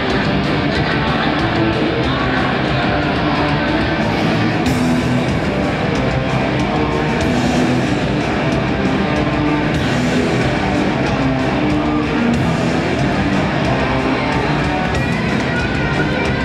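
Hardcore punk band playing live, loud and steady, with electric guitars and a drum kit.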